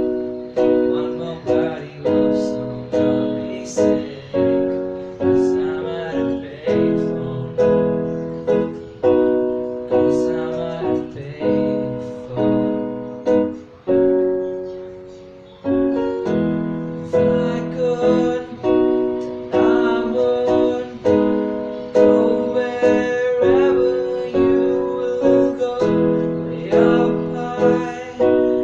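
Piano playing struck chords in a steady pulse, each chord fading before the next.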